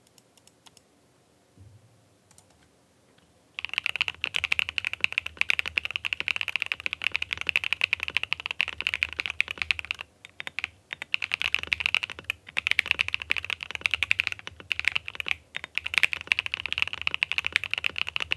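Typing on a Monsgeek M5 aluminum full-size mechanical keyboard fitted with Akko V3 Cream Yellow Pro linear switches, tall-profile Cinnamoroll OPI PBT keycaps, a polycarbonate plate and the tape mod. It gives a rapid run of poppy key clacks. The typing starts a few seconds in and stops briefly twice.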